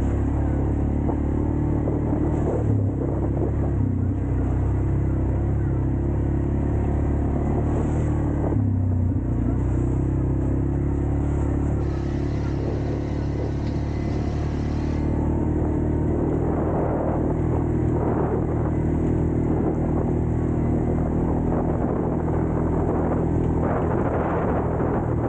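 ATV engine running steadily, its pitch dipping briefly twice before settling back.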